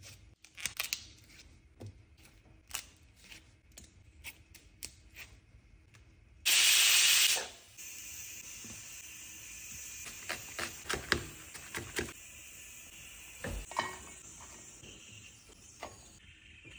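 A paring knife scraping and cutting drumstick (moringa) pods held in the hand, a run of crisp clicks and snaps. About six and a half seconds in, a loud burst of hiss lasts about a second, followed by a steady faint hiss under more clicks.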